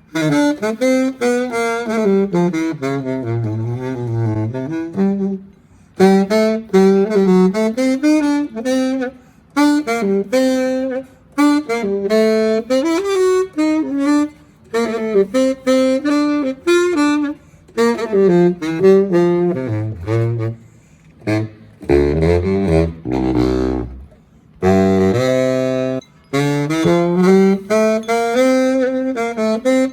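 Saxophone played solo: a melody in short phrases with brief breaks between them, dropping to a run of low notes about two-thirds of the way through.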